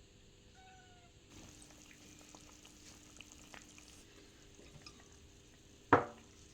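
A cat giving one short, loud meow near the end, over faint scattered clicks.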